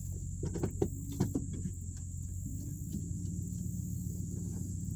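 Dodge Ram pickup's engine running steadily at low speed, heard from inside the cab, with a quick run of knocks and clicks in the first couple of seconds.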